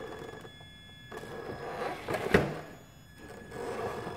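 Traxxas TRX-4 RC crawler's electric motor and gears whirring in short throttle bursts as it climbs over another RC car, with one sharp knock a little over two seconds in.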